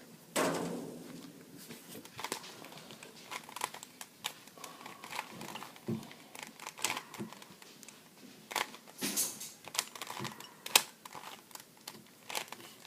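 Plastic Rubik's cube being turned by hand: quick, irregular clicks and clacks as the layers are twisted.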